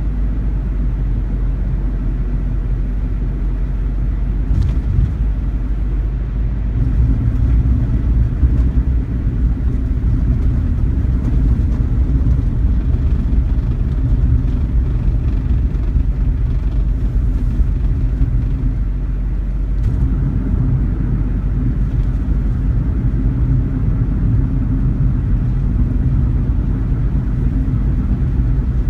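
Suzuki Wagon R Stingray (MH34S) driving, heard from inside the cabin: a steady low road and engine rumble with a few faint ticks scattered through. The ticks are the intermittent rattle from the right side of the dashboard near the air-conditioning vent, set off by speed bumps and road joints.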